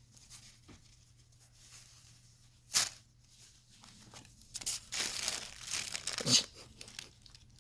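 Packaging being torn open and crinkled to free a plush toy. There is a single sharp rip about three seconds in, then a couple of seconds of crinkling rustle that ends in another sharp rip.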